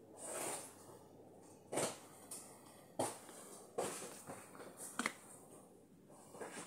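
Quiet indoor room tone with irregular soft knocks and rustles, roughly one a second: handling and footstep noise from someone walking while holding the camera.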